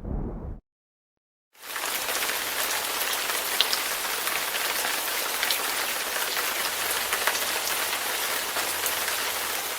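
Steady rain as a sound effect: an even hiss with scattered ticks of single drops, starting about a second and a half in. Before it, a low rumble cuts off abruptly, followed by a moment of silence.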